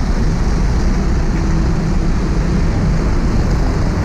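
Steady, loud low rumble of motor vehicle engines running, with no distinct events.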